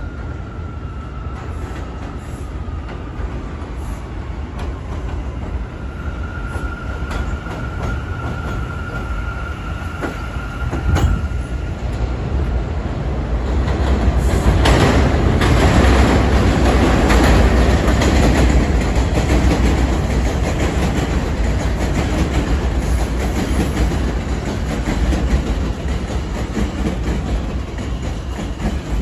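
New York City subway J train approaching and pulling into an elevated station, with a thin steady whine early on. Then a rumble and clatter of wheels over rail joints grows loud in the middle and eases off as the train slows to a stop.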